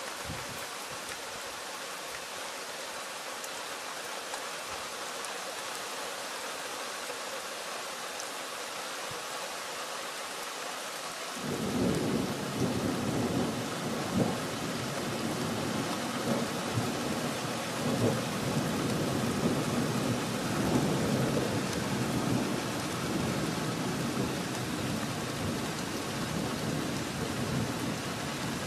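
Steady rain hissing. About twelve seconds in, a long rumble of thunder starts suddenly and goes on, swelling and fading, under the rain.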